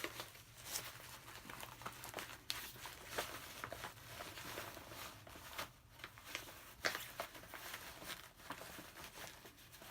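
Crinkling and rustling of a soft ballistic armour panel being worked into a nylon vest carrier by hand, with scattered small scrapes and knocks.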